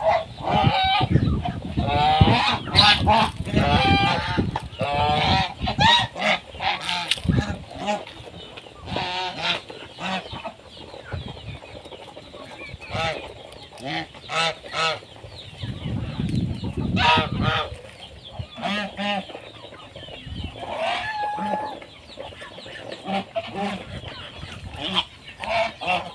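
A flock of domestic geese honking while they feed. The calls come thick and overlapping for the first several seconds, then as scattered single honks.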